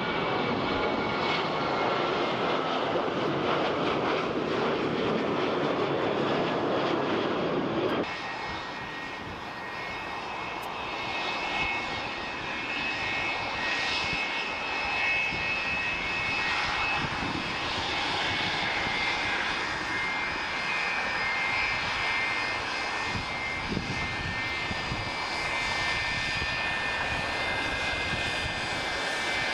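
Jet engine noise from a Delta Boeing 737 climbing out after takeoff. It cuts off abruptly about eight seconds in. It is followed by the quieter, steady, high-pitched whine of a Delta McDonnell Douglas 'MadDog' jetliner's rear-mounted engines as it taxis.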